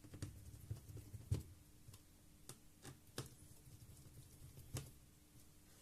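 Faint, scattered clicks and taps of hands handling parts inside an opened laptop, about six in all, the loudest about a second and a half in.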